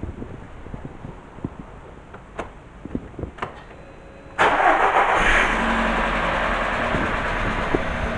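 VW Golf VI 1.4 TSI (CAXA) turbocharged four-cylinder petrol engine cranking and starting about four seconds in, flaring briefly, then settling into a steady idle. A few faint clicks come before the start.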